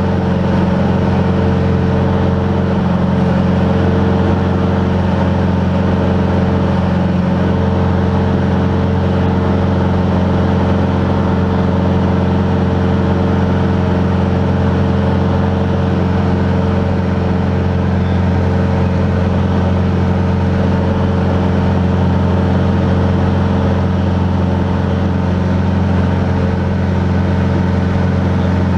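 Van's RV-10 light aircraft's piston engine and propeller running steadily, a constant hum with several steady tones and no change in pitch.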